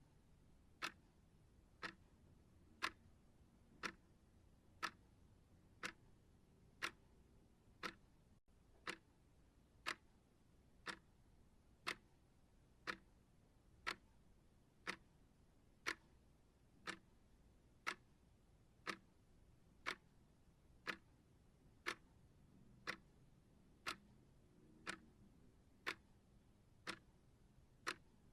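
Timer ticking steadily, one sharp tick about every second, over a near-silent background.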